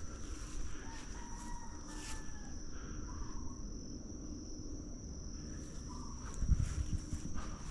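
Insects singing in one steady high-pitched tone, over a low rumble of wind and handling noise on a body-worn camera. A few dull thumps come about six and a half seconds in.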